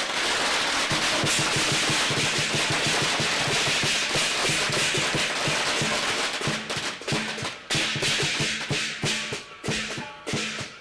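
Chinese lion dance percussion played live in the street: a drum beaten in fast, dense strokes with clashing gongs. The bright wash of the gongs eases after about six seconds, leaving more separate sharp strikes.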